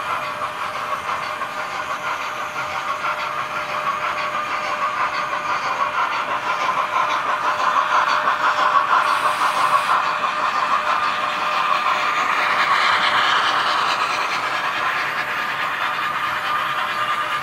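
Model train running past on its track: a steady motor whir with the rolling of wheels on rails, growing louder as the locomotive and coaches pass close by around the middle and easing off near the end.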